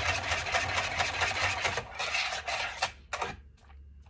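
Wire whisk beating hot milk and strawberry gelatin in a plastic bowl, a fast run of scraping clicks as the wires strike the bowl while the gelatin powder is stirred until it dissolves. The whisking stops about three seconds in, followed by a few single clicks.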